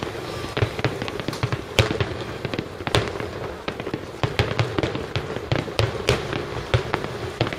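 A rapid barrage of aerial firework shells bursting over a lake: many sharp bangs, several a second at uneven spacing, overlapping one another.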